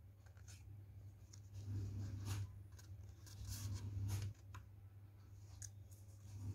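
Faint rustling and light crinkles of stiff white paper as hands overlap and press the flaps of a paper box lid, several soft ticks spread through, over a low steady hum.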